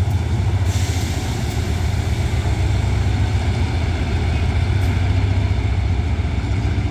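GEA-class GE diesel-electric locomotive's diesel engine running steadily with a low, even drone.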